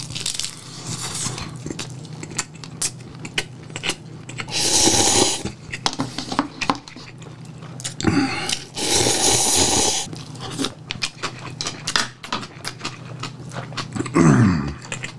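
Close-up eating sounds: chewing and wet mouth clicks over cup ramyeon noodles and a triangle kimbap, with two long noodle slurps, one about five seconds in and a longer one from about eight to ten seconds.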